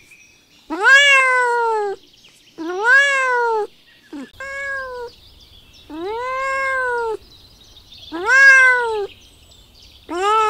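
Kitten meowing repeatedly: six drawn-out, high meows about two seconds apart, each rising and then falling in pitch.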